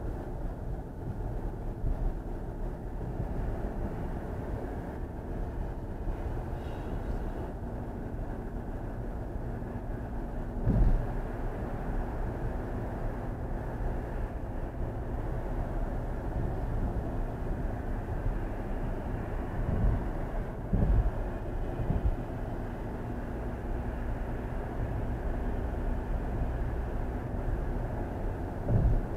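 Steady road and tyre noise of a car driving at highway speed, heard from inside the cabin, with a low hum under it. Several brief low thumps come through, once about eleven seconds in, twice around twenty seconds and once near the end.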